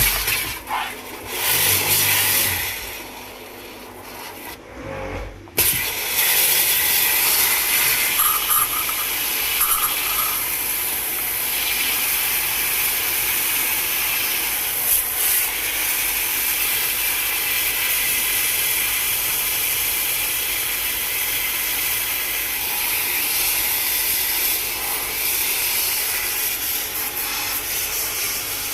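A loud, steady hiss starts suddenly about five and a half seconds in, after a few seconds of short rubbing and knocking sounds.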